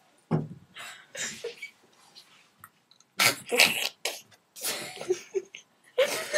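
A girl's short breathy vocal bursts, several in a row, the loudest a little after three seconds in.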